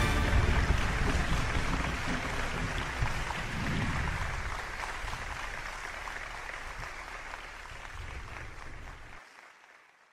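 Crowd applauding, fading away over the last several seconds.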